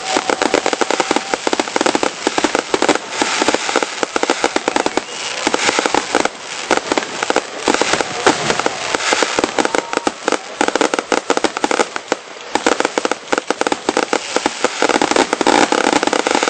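Fireworks show in full swing: a dense, unbroken barrage of cracks and pops, many reports a second, with no break.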